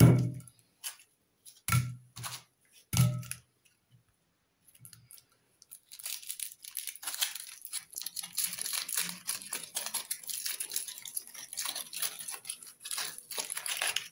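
Three knocks in the first few seconds as foil-wrapped balls are set down on a plastic plate. From about six seconds in, aluminium foil crinkles and tears as it is peeled off a ball.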